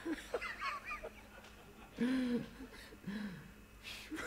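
A man's voice making several short wordless sounds, some squeaky with quick rising and falling pitch; the loudest is about two seconds in.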